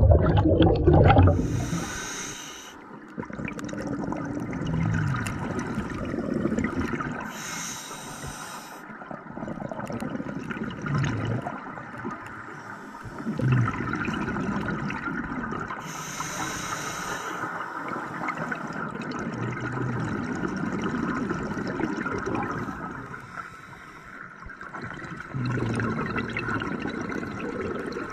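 Scuba regulator breathing heard underwater: a loud rush of exhaled bubbles at the start, then short hissing inhalations three times, over a steady watery murmur.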